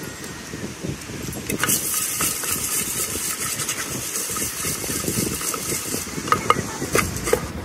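A spoon stirring jhal muri (spiced puffed rice) in an aluminium mug: a dry, dense rattle of the grains against the metal, then a few sharp clinks of the spoon on the mug near the end. Low wind and surf rumble underneath.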